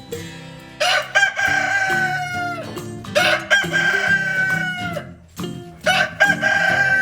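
A rooster crowing three times, each crow a long call of about two seconds that falls slightly in pitch and then breaks off, over background music.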